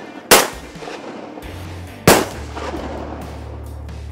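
Two shotgun shots about two seconds apart, each cracking sharply and then ringing out across the water.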